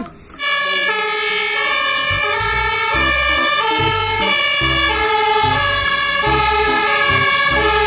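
Fire engine's two-tone siren sounding, its pitch switching back and forth between two notes; it starts about half a second in.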